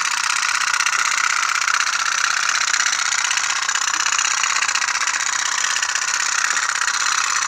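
Toy tin pop-pop boat (kapal otok-otok) running, its heated boiler sending out a fast, even putt-putt rattle.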